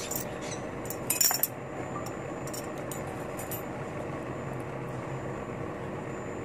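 Fork and knife clinking and scraping on a ceramic plate while cutting food, loudest about a second in with a brief ring, then a few lighter taps. A steady low hum runs underneath.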